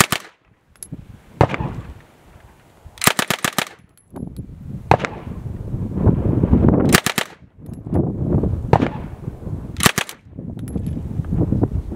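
MP 41 submachine gun firing 9 mm rounds, short full-auto bursts of three to six shots mixed with single shots.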